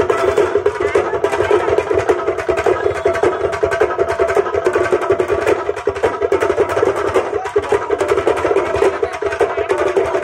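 Loud festival music driven by fast, dense drumming: a steady stream of rapid beats that runs without a break.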